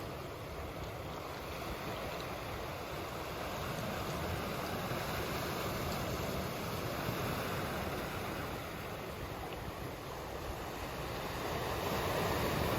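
Sea waves washing in, a steady rushing wash that swells a little around the middle and again near the end.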